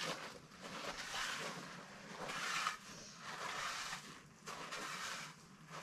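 A rake dragged through loose gravel in irregular strokes, spreading it out, with a rough scraping and crunching that swells and fades every second or so.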